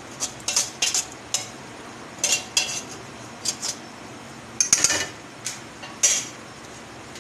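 Metal slotted turner scraping and clinking against an aluminium pot as chicken pieces are pushed around in oil. The short scrapes come in clusters, most in the first second and a half and then more spaced out, and stop shortly before the end.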